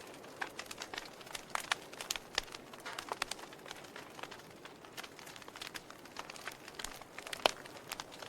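Wood fire crackling in a fireplace: irregular snaps and pops over a soft hiss, with one louder pop about seven and a half seconds in.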